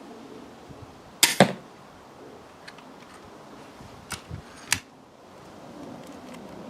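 Armex Tomcat 80 lb pistol crossbow shooting a bolt: a sharp double crack of the string about a second in, then two lighter clicks about three seconds later.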